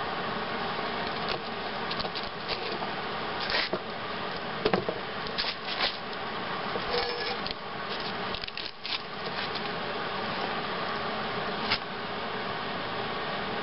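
Steady buzzing hum of a powered-up Hobart Handler 140 MIG welder standing by before the arc is struck, with scattered light knocks and clinks of steel pieces being handled and set in place.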